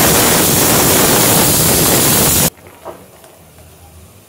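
Loud steady hiss of steam from a pot cooking on the stove, cutting off abruptly about two and a half seconds in, leaving a quiet background with a few faint ticks.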